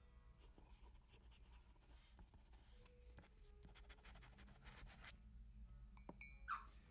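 Faint scratching and rustling of paper, in short scattered strokes, with a short rising squeak near the end.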